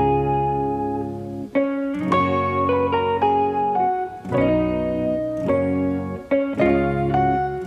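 Background music: a plucked guitar melody over bass notes, at a moderate, even pace.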